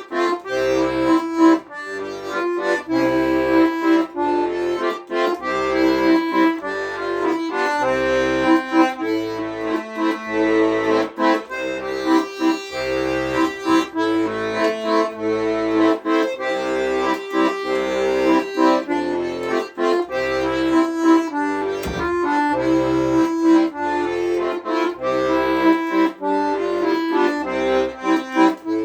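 Accordion playing an instrumental piece: a sustained reedy melody with chords over a regular, pulsing bass line.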